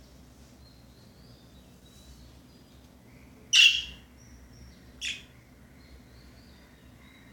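Pet budgerigar giving two short, harsh calls midway, the second shorter and quieter, over faint soft chirping and warbling.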